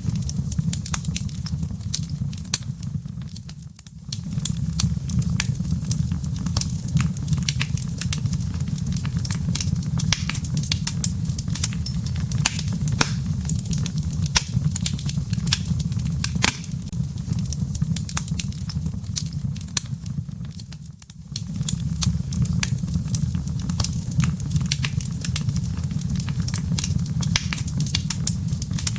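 Wood fire burning in a fireplace: a steady low rumble of flames under frequent sharp crackles and pops of burning logs. The sound fades down briefly twice, about four seconds in and again about two-thirds of the way through.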